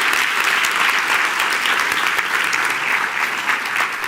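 Audience applauding steadily, a dense patter of many hands clapping, easing off slightly near the end.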